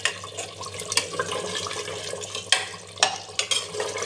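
Steel ladle stirring mutton pieces in thick gravy in a pressure cooker pot, scraping and knocking against the metal about five times, while the leftover water sizzles off.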